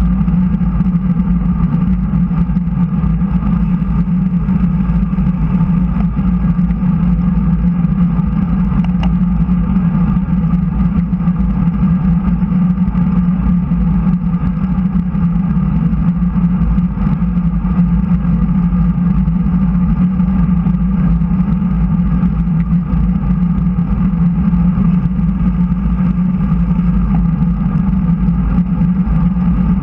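Steady wind rush and tyre noise of a road bicycle riding at speed, picked up by a camera mounted on the bike, with a constant low drone.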